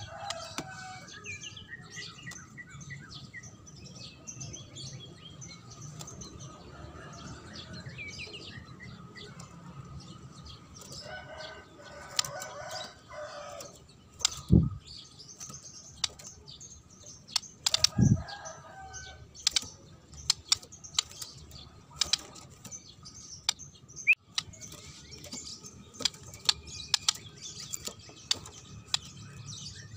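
Caged white-rumped shama flapping its wings as it flies and lands between perches, giving two heavy wing thumps about three and a half seconds apart near the middle. Bird chirps and calls go on throughout, with short sharp clicks in the second half.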